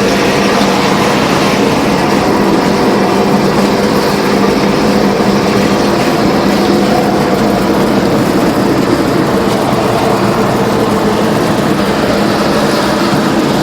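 Intercity bus running at speed, above 100 km/h, its engine and exhaust giving a steady deep growling drone over road and wind noise.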